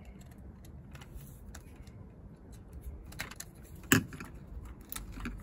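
Light clicks and taps from handling a plastic trailer socket and a screwdriver while wiring it, with one sharper click about four seconds in.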